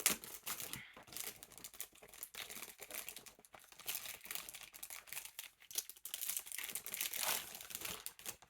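Wrapping on a new sketchbook crinkling and crackling irregularly as it is handled and opened by hand.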